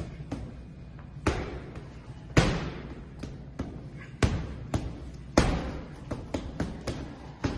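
Irregular slaps and thumps of stacks of cash being handled and set down, a few loud ones among many lighter knocks, over the steady low hum of a private jet's cabin.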